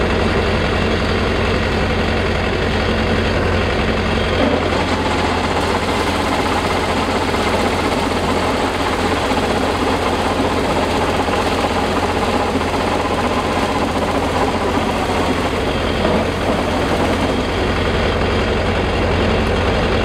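Zoomlion Hercules 4LZ-5.0 tracked combine harvester running steadily at close range, its diesel engine and threshing machinery going while it unloads rice grain through its spout into a sack.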